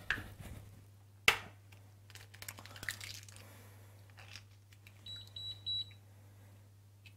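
An eggshell cracked sharply against the rim of a bowl about a second in, then small clicks and rustles as the shell is pulled apart and the egg separated. A short high beep with brief breaks comes about five seconds in, over a steady low hum.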